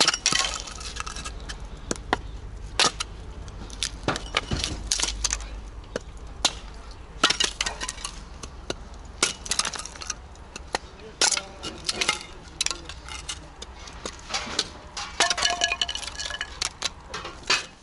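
A hatchet splitting thin wooden boards into kindling, with repeated sharp, irregular cracks and knocks as the blade strikes and splits the wood, over a steady low rumble.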